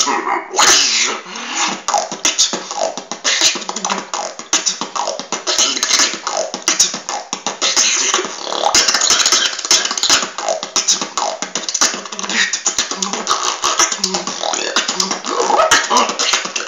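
Solo human beatboxing freestyle: a fast, unbroken run of mouth-made percussive clicks and hisses, mixed with short pitched vocal sounds.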